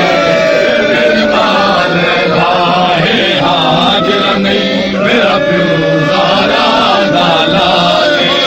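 A crowd of men's voices chanting and calling out in mourning at once, many voices overlapping without a break.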